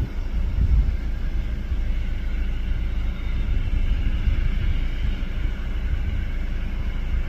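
Boeing 737-800's CFM56 jet engines running at taxi power as the airliner lines up on the runway for takeoff: a steady low rumble with a faint high engine whine.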